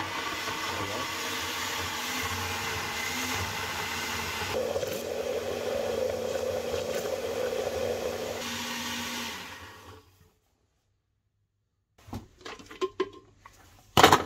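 Countertop blender running steadily as it purées raw chicken and liver into a paste. Its sound deepens about halfway through and winds down to a stop around ten seconds in. A few clicks and knocks follow, with a sharp, loud knock near the end.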